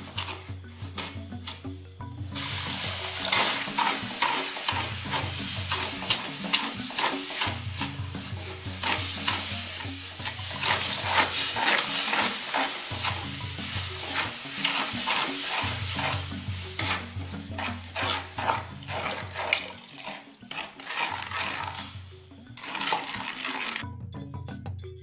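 Wooden spoon stirring and scraping granulated sugar against the bottom of a metal pan in quick, irregular strokes, as sugar and water are worked together to melt into syrup.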